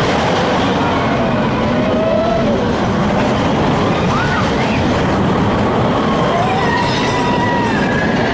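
Big Thunder Mountain mine-train roller coaster running along its track: a steady, loud rumble and rush, with a few faint rising and falling squeals over it.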